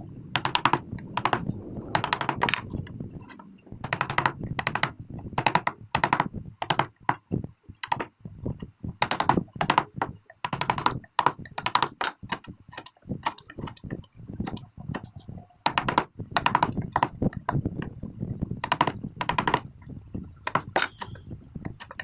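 Quick, irregular sharp taps and knocks, about two or three a second with short pauses, typical of tools striking wood during hand carving.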